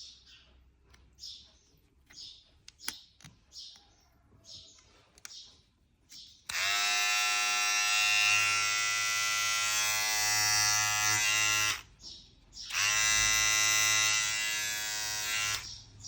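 Philips electric trimmer's motor switched on and buzzing steadily for about five seconds, switched off, then run again for about three seconds. Faint clicks of handling come before it starts.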